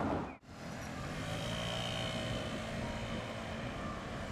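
Street-side vehicle noise of a Tosaden streetcar and traffic running past, with a faint steady whine. The sound drops out briefly about half a second in.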